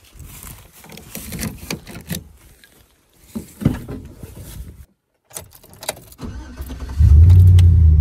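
Rustling and knocks of getting into a vehicle, with a door thud a few seconds in and keys jangling; then about seven seconds in the engine starts and runs with a loud, steady low rumble.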